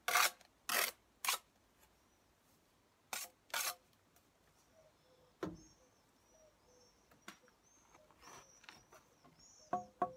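Steel brick trowel scraping mortar onto the end of a brick to butter a full joint, in five short scrapes over the first four seconds, then a single thump about halfway through as the brick is set down. Birds chirp faintly in the background, and plucked guitar music begins near the end.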